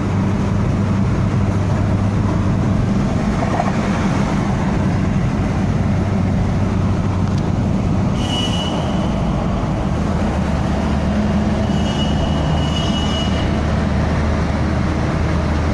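Car engine and road noise inside the cabin while driving at speed, a steady drone. A thin high tone sounds briefly about halfway through and again for over a second a few seconds later.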